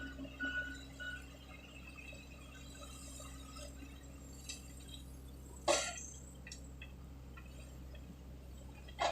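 Reversing alarm on heavy equipment beeping a little under twice a second, stopping about a second in, over a steady low engine hum. Two short sharp clicks follow later, one near the end.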